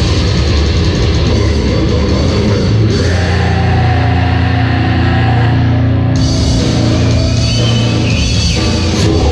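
Death metal band playing live: distorted guitars, bass and drums at full volume. The top end of the mix thins out for about three seconds midway, then comes back.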